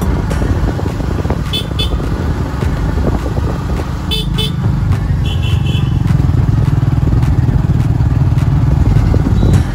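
Small 110cc motorcycle being ridden, a dense low rumble that grows heavier about halfway through and drops off just before the end. Three short horn toots sound over it.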